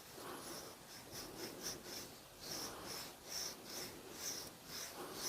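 Small round file rasping back and forth in the grooves of a wooden screwdriver handle, recutting them in quick, even strokes about two to three a second.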